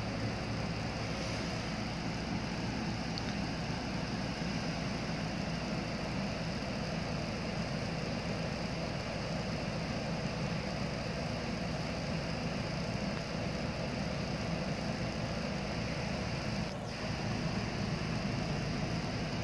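Steady, even hum and hiss of background noise, unchanging throughout, with a faint brief tick near the end.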